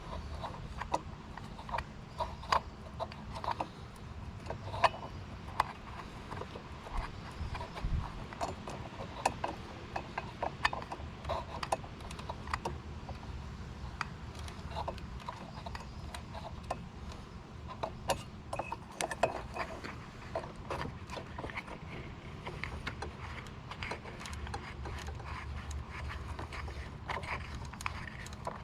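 Irregular small clicks and taps of metal parts being handled as the choke cable and nut are threaded back together on a 2004 Polaris Sportsman 400 carburetor.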